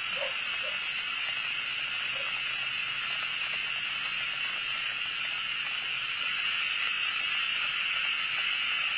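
Steady high-pitched hiss with no distinct events.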